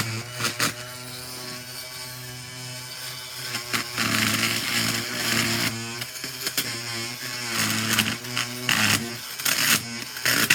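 Dremel Multi-Max oscillating multi-tool running as its saw blade cuts through upholstery staples and layers of fabric, a steady motor buzz whose pitch shifts a few times as the load changes.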